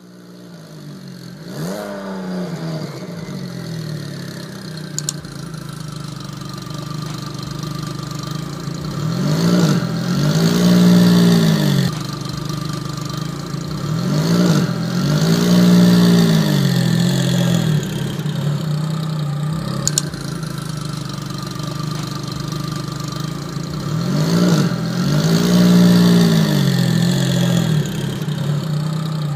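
9ff GT9-R's twin-turbo flat-six engine idling, blipped three times, each rev rising and falling over about two seconds. It flares up briefly near the start as it catches.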